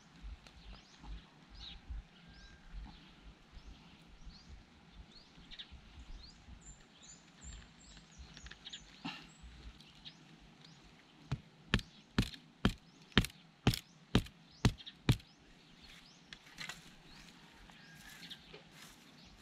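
A run of about eight sharp knocks on wood, about two a second, from the sticks of a bushcraft pot-hanging setup being worked. Before it, light rustling in dry grass and a brief high bird twitter.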